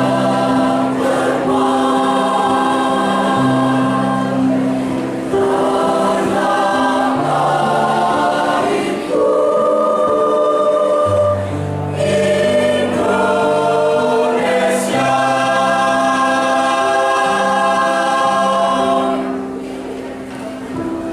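Choir singing in long held chords, with a low bass line under the voices; it grows quieter near the end.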